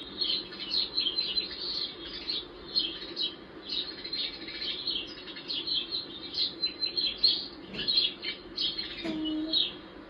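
Sparrows chirping in rapid, unbroken chatter, many overlapping chirps.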